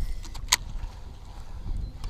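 A single sharp click about half a second in, over a low, steady rumble.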